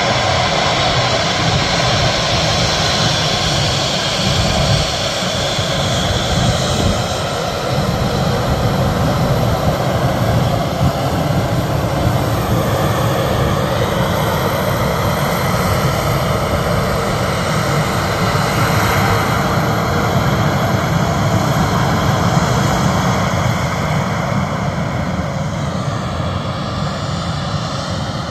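Airliner engines running loudly and steadily as the aircraft passes, easing off slightly near the end.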